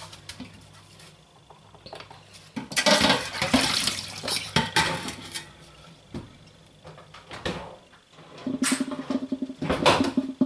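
A metal muffin tin being washed in a stainless-steel sink: water splashes and pours off as the tin is lifted out of the soaking water, with a few knocks of metal on metal. Near the end comes a quick, regular scrubbing with a sponge on the tin.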